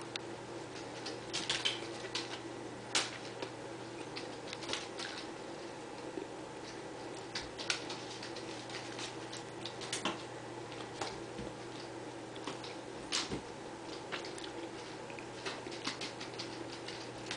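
Scattered light taps and scratches at irregular intervals as a kitten scampers and pounces about on the floor, over a steady low hum.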